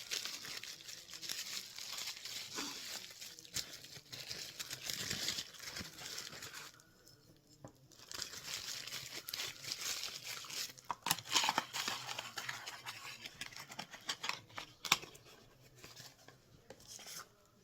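Paper and cardboard packaging crinkling and rustling, with scattered light clicks, as a boxed ornament is handled and unpacked; it pauses briefly about seven seconds in.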